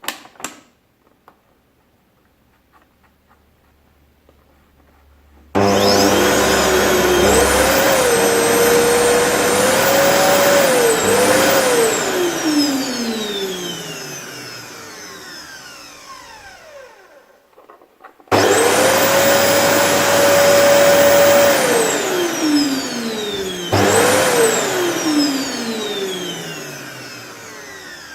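Vacuum cleaner motor switched on suddenly about five seconds in, running with a high whine whose pitch wobbles a few times, then switched off and spinning down with a long falling whine. It is switched on again, cut off, given one brief burst and left to wind down near the end.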